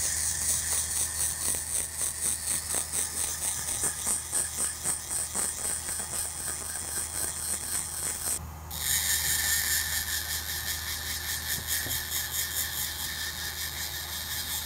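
Pencil die grinder with a grey abrasive point spinning at high speed, a steady high whine and hiss as it grinds and blends the grip safety into a 1911 pistol frame. It stops for a moment about halfway through, then starts again with a slightly different pitch.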